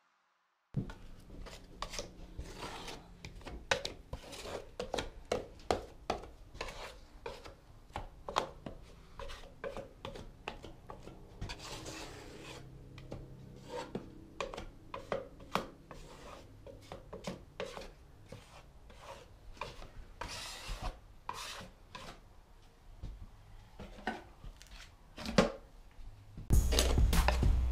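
Drywall taping knife scraping and smoothing joint compound over the drywall seams, a quick, irregular run of scrapes and small taps.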